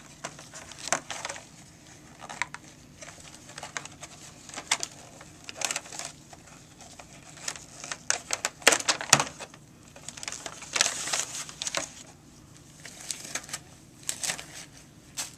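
Paper and plastic packaging crinkling and crackling in irregular bursts as a sterile suction catheter kit's paper lid is peeled off its plastic tray and the packets inside are handled.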